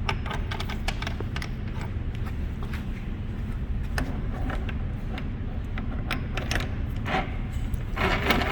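Scattered light clicks and knocks from parts of a drill press being handled, over a steady low rumble, with a rubbing, scraping sound near the end.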